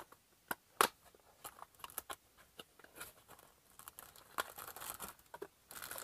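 Hands opening a small cardboard box, with scattered light taps and scrapes and one sharper click just under a second in. Toward the end a plastic bag of small parts is handled, crinkling more steadily.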